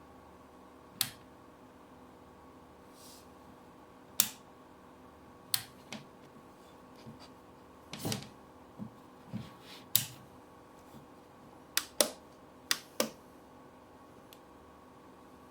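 Sharp clicks and taps from hands handling a small plastic rechargeable lamp and its packaging, about a dozen at irregular intervals, some in quick pairs, over a faint steady hum.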